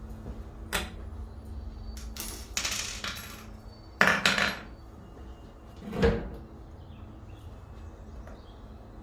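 Tools and fitting parts being picked up and set down, giving a few separate clinks and knocks with a short rattle; the loudest clatter comes about four seconds in and a dull thump about six seconds in.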